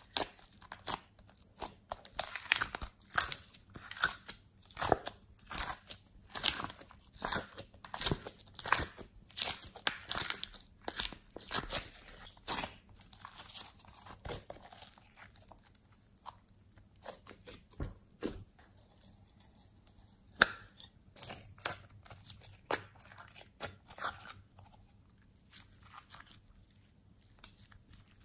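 Glossy slime being pressed, squished and kneaded by hand, making many sharp wet crackles and pops. They come thick and fast for the first half, then thin out to scattered pops.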